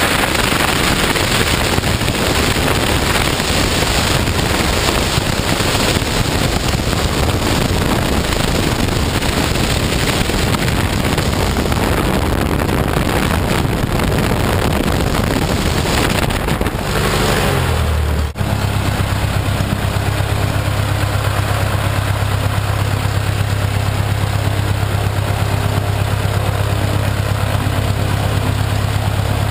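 A Stolp SA900 V-Star biplane's Lycoming O-290 four-cylinder aero engine runs at high power with propeller blast rushing over the microphone. About two-thirds of the way through it is throttled back: the pitch falls and it settles into a steady, even idle.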